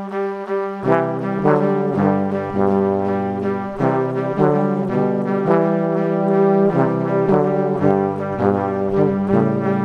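Background music led by brass instruments playing held chords. Lower brass notes join about a second in, and the chords change roughly every second.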